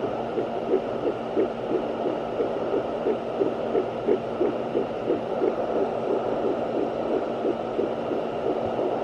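A handheld fetal Doppler's speaker playing a baby's heartbeat: fast, even pulses at about two and a half a second, over a steady hum and static hiss.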